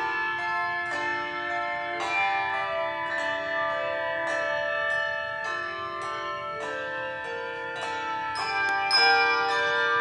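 Handbell choir playing: brass handbells rung in chords, each ringing on and overlapping the next, with new chords struck about once a second and the loudest near the end.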